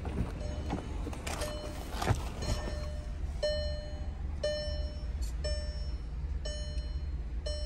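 A Volkswagen Jetta's dashboard warning chime dinging about once a second, faint at first and then steady, with the driver's door open. A few knocks of the door handle and the door opening come in the first two seconds.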